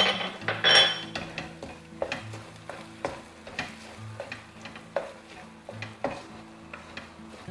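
A spoon stirring a thick creamy chicken filling in a pan, with irregular scrapes and taps against the pan and a louder scrape about a second in, over a faint sizzle. Faint background music underneath.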